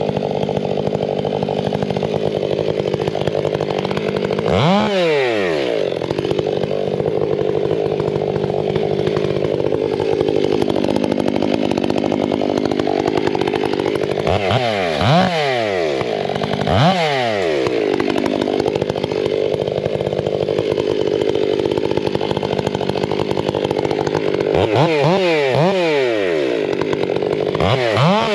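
Stihl 500i chainsaw running at high revs while bucking felled trees into log lengths. Its engine pitch dips and climbs back several times, about five seconds in, twice near the middle and twice near the end.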